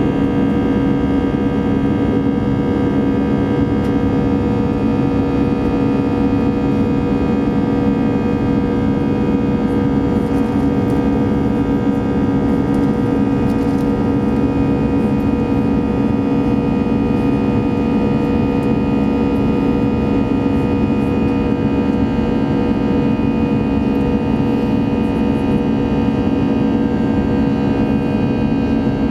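Cabin noise of an Airbus A320 in flight: the steady drone of the jet engines and rushing air, with several steady humming tones over it.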